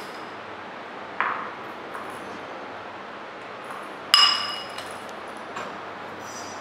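Metal spatula clinking against a porcelain dish while scooping soil. There is a sharp clink about a second in, a louder ringing clink about four seconds in, and a faint tap near the end, over a steady background hiss.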